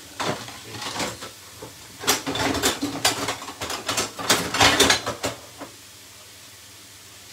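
Clattering and clinking of kitchen jars and containers being handled and knocked together, in a quick run from about two to five seconds in, over the steady low sizzle of mince frying in the pan.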